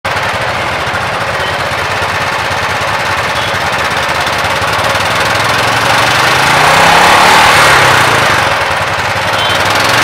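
Royal Enfield Classic 350's single-cylinder engine running through its chrome exhaust with a rapid, even thump, revved up about six seconds in and easing back near the end.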